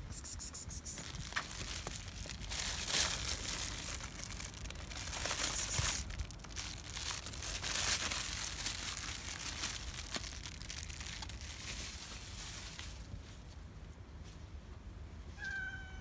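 A thin plastic bag being handled, crinkling and rustling unevenly for most of the stretch. Near the end a cat gives one short meow.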